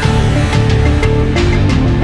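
Background music: a loud rock-style track with sustained notes and a steady beat.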